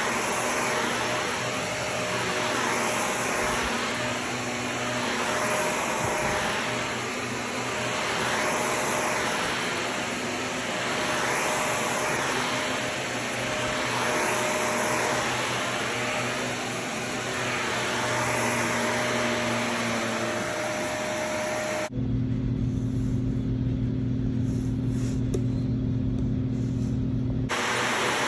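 Shark upright vacuum cleaner running on carpet, its motor and suction rising and falling with each push-and-pull stroke. About 22 s in, the sound cuts abruptly to a deeper, steadier hum for a few seconds, then the vacuum sound returns.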